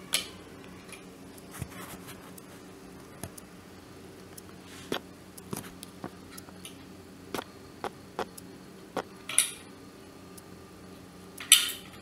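Scattered small metal clicks and taps as a screwdriver and fingers work the power cord's spade terminals off the terminal pins of a dry iron, with sharper clicks about half a second in, at about nine and a half seconds and near the end.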